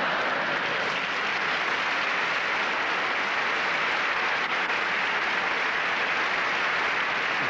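Live audience applauding steadily.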